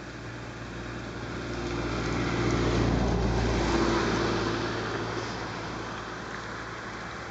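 A motor vehicle passing by: engine rumble and road noise grow louder, peak a few seconds in, then fade away.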